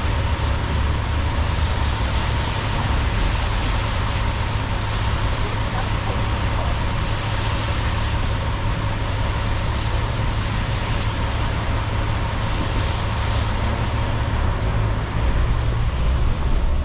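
Car driving on a city street: steady road noise, a strong low rumble of engine and tyres with an even hiss on top.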